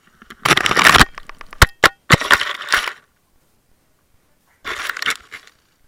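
Airsoft electric rifle firing short, rapid full-auto bursts, three of them with a couple of single cracks in between, after a countdown to open fire.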